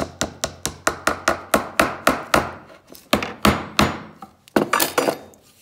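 Ball-peen hammer tapping pins into a wooden handle: rapid, even light blows, about four or five a second. The blows pause briefly about four seconds in, then a few more follow.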